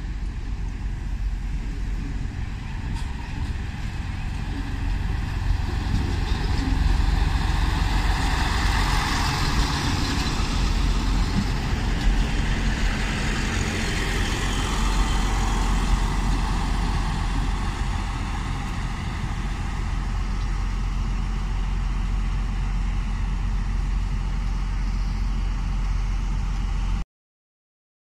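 HŽPP class 711 diesel multiple unit pulling into the platform, its diesel engines running with a steady low rumble and the wheel-and-engine noise swelling as it passes close by, then settling to a steady running sound. The sound cuts off suddenly near the end.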